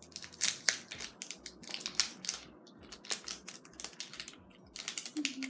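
Sticky slime squished and pulled by hand, making irregular clicking and crackling pops.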